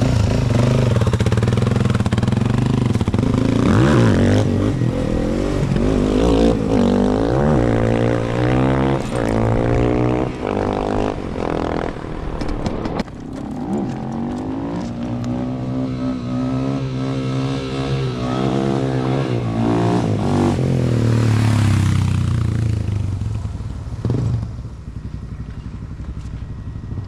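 Suzuki DR-Z400SM's single-cylinder four-stroke engine on a test ride after its first service. It revs up and down repeatedly as it accelerates through the gears, holds a steadier pitch for a while, then fades away about 24 seconds in.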